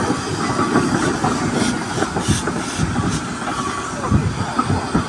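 Steam traction engine driving slowly past, its exhaust and motion beating in a steady rhythm, with hissing steam for about a second near the middle.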